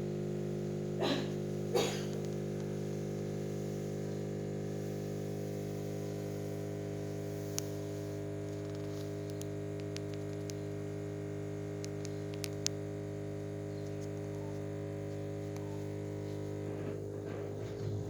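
Steady electrical hum with a stack of even overtones. Two short rustling bursts come in the first two seconds, and a few faint clicks come later.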